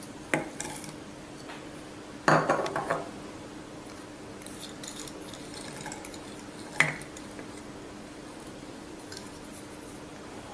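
A plastic spoon knocking against a glass jar as dry ingredients are tipped in: a clink about half a second in, a short rattling clatter at about two and a half seconds, and one more sharp clink near seven seconds, over a faint steady hum.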